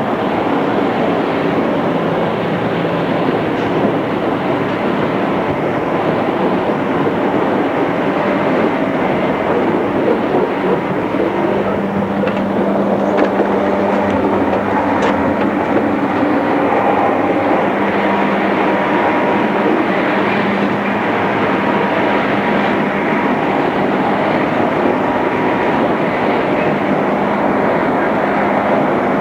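Interior running sound of a JR East 211 series electric multiple unit with inner-fan traction motors, travelling at speed between stations. It is a steady rumble with a constant hum, and a few faint clicks from the wheels partway through.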